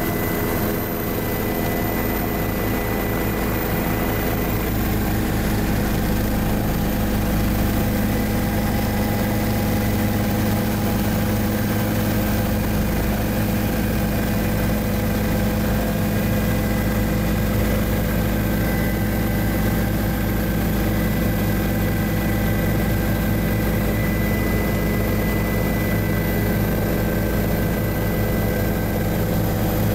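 Helicopter's engine and rotors running steadily in flight: an even drone with a few steady whining tones.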